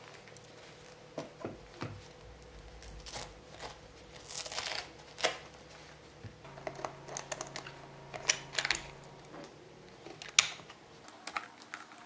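Hands handling a soft-bodied baby doll and its cloth sleepsuit: fabric rustling with scattered small clicks and taps.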